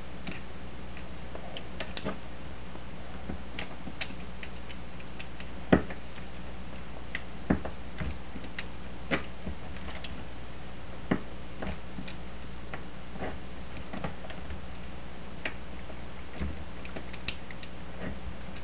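Scattered light clicks and a few sharper snaps of RG-8 coax being cut to length by hand, over a steady low hum.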